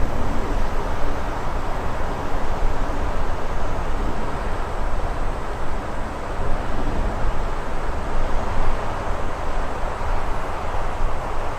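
Steady wind with a deep rumble, swelling and easing in gusts.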